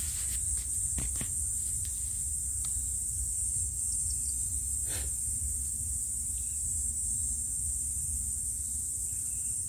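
A steady high hiss over a low hum, with a few scattered clicks from a spanner working a connecting-rod bearing cap nut in the crankcase of a 10 hp Lister diesel engine being tightened. The clicks come mostly in the first second or so, with one more about five seconds in.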